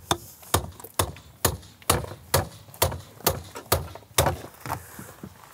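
A hammer striking a tool wedged into a car's locked steel fuel filler flap to break it open. About ten sharp strikes come at an even pace of roughly two a second.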